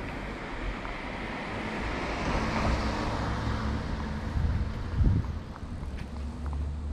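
A car passing on the street: tyre and engine noise swells, peaks about two to three seconds in and fades, over a steady low engine hum. A brief low thump about five seconds in.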